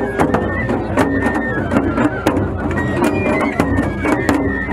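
Japanese festival music (matsuri-bayashi) from a float: a large taiko drum struck with sticks in a quick, steady beat of several strokes a second, under a high, wavering flute melody.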